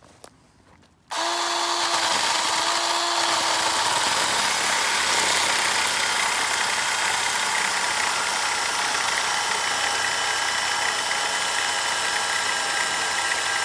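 Ryobi 18-volt battery chainsaw with a brushed motor starting suddenly about a second in and running steadily under load, cutting through wood for a timed power test.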